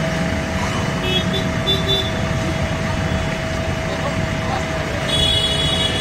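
Steady engine noise of heavy vehicles with a crowd's voices. Short, high ringing tones come about a second in and again near the end.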